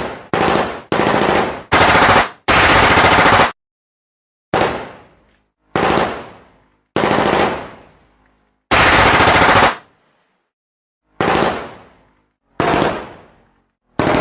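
Bursts of automatic gunfire, about a dozen with short pauses between them. Most are brief and a few run for about a second. Each burst trails off in an echo.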